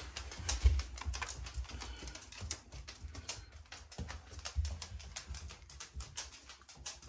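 Rapid, irregular light clicks and taps over a low rumble.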